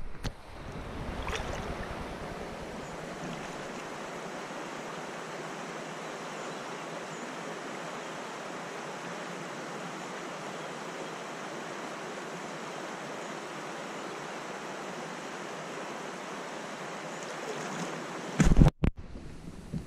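Steady rushing of shallow river water flowing past, an even hiss with no speech, and a brief loud burst near the end.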